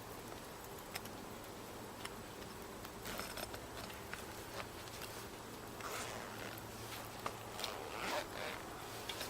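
Faint rustling and scattered light clicks, with a busier, louder stretch of rustling and scraping in the second half.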